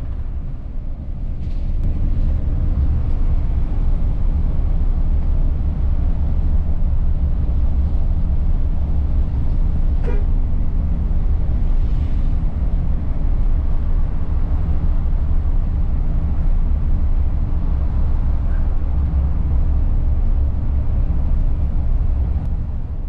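Steady engine hum and road rumble heard from inside a vehicle cruising on a highway, with no change in speed.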